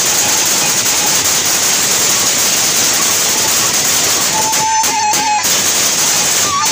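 Sasak gendang beleq ensemble playing: a dense, steady wash of clashing hand cymbals over large double-headed drums, with a thin high held tone above it. About two-thirds of the way in, and again at the end, the wash breaks into a run of quick stops.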